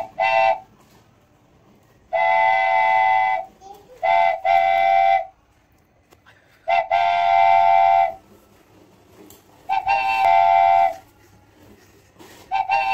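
A toy's electronic horn tooting, several pitches sounding together like a train horn. It goes in repeated groups: a short toot, then a blast of about a second, every few seconds.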